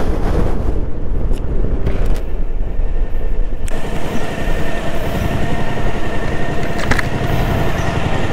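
Motorcycle engine running under heavy wind rumble on the microphone. A little over a third of the way in the wind eases and a steady engine hum comes through as the bike slows into the toll lane, with a couple of light clicks near the end.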